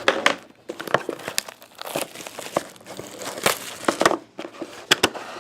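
Trading card box packaging being torn open and its wrapper crinkled by hand: an irregular run of sharp crackles and rips.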